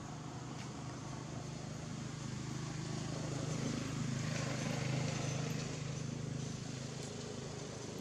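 A motor vehicle going past unseen, its engine hum and road noise swelling to a peak about halfway through, then fading.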